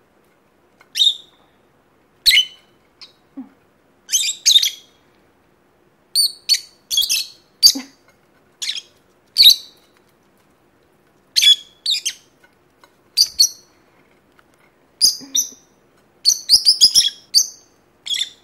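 Peach-faced lovebirds chirping: short, sharp, high calls in an irregular series, some single and some in quick clusters. The calls are busiest near the end.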